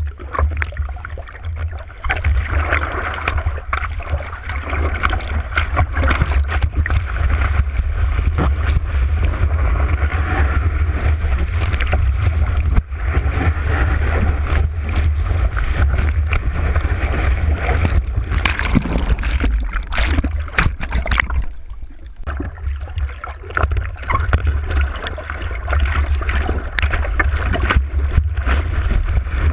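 Wind buffeting the camera microphone in a heavy low rumble over the rushing of breaking surf. It eases briefly about two-thirds of the way through.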